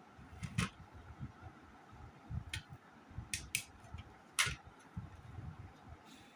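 Handling of laser-printer toner cartridge parts: several sharp plastic clicks, the loudest about four and a half seconds in, among light knocks.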